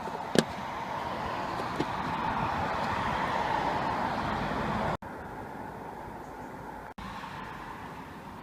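Road traffic noise that swells over a few seconds and then cuts off abruptly about five seconds in, leaving a quieter steady hiss. A single sharp click comes just after the start.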